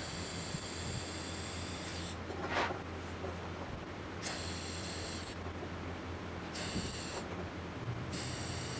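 TIG welding arc on 2 mm SUS430 stainless steel at about 20 A: a hiss that is struck and broken several times, first for about two seconds, then for about a second, then in shorter runs. A steady low hum lies underneath throughout.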